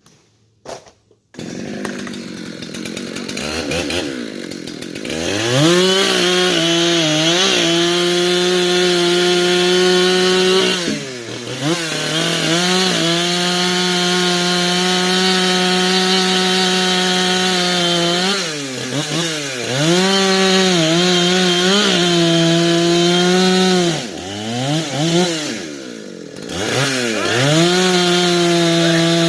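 A few clicks, then a gasoline two-stroke chainsaw running at high revs, its pitch dropping and climbing back several times as the throttle or the cutting load changes.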